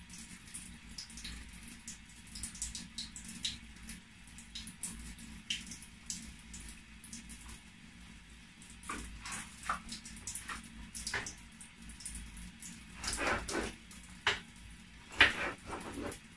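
Kitchen knife slicing a cucumber on a wooden chopping board: light, irregular taps and cuts, with a few louder knocks of the blade on the board in the second half.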